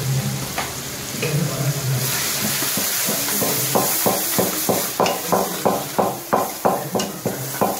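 Onion-tomato masala sizzling in hot oil in a pressure cooker while a metal ladle stirs it. The masala is being fried down after the chilli powder went in. From about halfway the ladle strikes and scrapes the pot in a steady rhythm, about three strokes a second.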